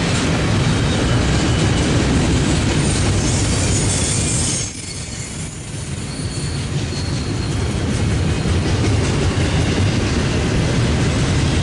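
Loaded intermodal well cars of a long freight train rolling past: a steady rumble of steel wheels on rail with some thin, high wheel squeal. The level drops suddenly about five seconds in, then builds back up.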